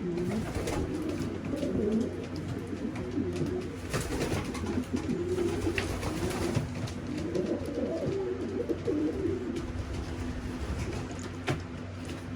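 A loft full of racing pigeons cooing, several birds overlapping in a low, wavering murmur, with a few scattered sharp clicks.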